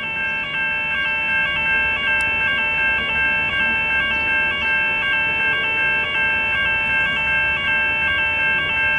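Electronic railway crossing warning bell ringing steadily at about two strokes a second, each stroke a cluster of bright, ringing tones; the crossing is active for a passing train.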